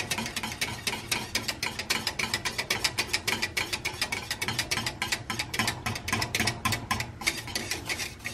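Wire whisk beating against the sides and bottom of a stainless steel pot in a fast, even run of clinks, several a second, stirring the blue cornmeal and juniper ash mixture into boiling water as it is poured in.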